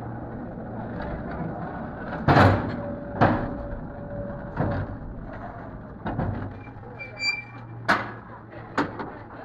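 San Francisco cable car being pushed around on its turntable: a string of sharp clunks and knocks, about six of them, the loudest a couple of seconds in, one followed by a metallic ring that hangs on for over a second. Crowd chatter runs underneath.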